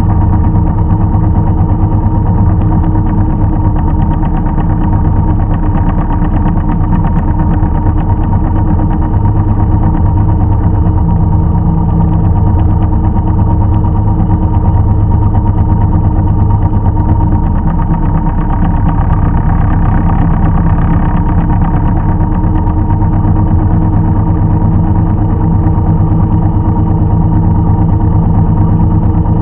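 Farm machinery engine running steadily at a constant speed, loud and without a break.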